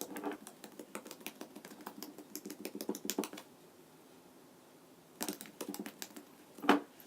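Sticky slime being worked in the hands, giving a fast run of small wet clicks and crackles for about three seconds. After a pause come a few more clicks, then one louder click near the end.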